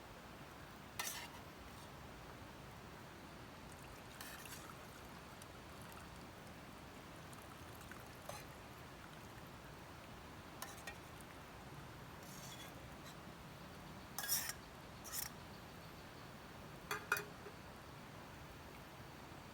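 Scattered light clinks and taps of eating utensils against camping cookware, about nine in all, the loudest near the end, over a faint steady hiss.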